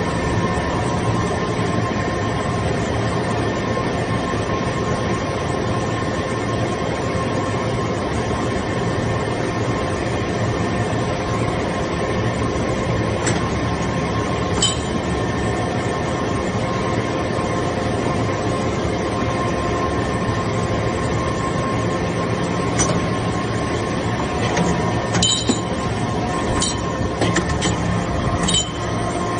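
Metal chip baler running: a steady industrial machine noise with a constant whine and low hum, and occasional sharp metallic clinks, more of them in the second half.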